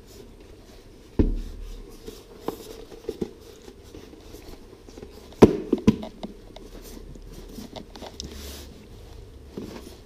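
Parts of a diesel heater being handled and fitted back together: scattered knocks and clicks, the loudest a little past halfway through.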